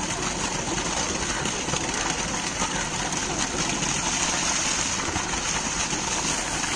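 Steady gush of water pouring from a farm pump's outlet pipe into a concrete tank.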